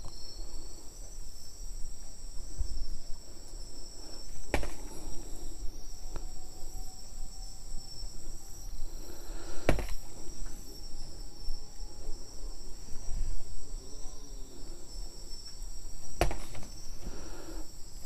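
Crickets chirping in a steady high trill, with three sharp clicks several seconds apart.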